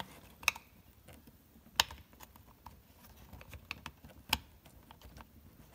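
Small plastic clicks and taps from handling an LED door light and its wire connector while fitting it into the door-panel light housing. Three sharper clicks stand out, about half a second, two seconds and four seconds in.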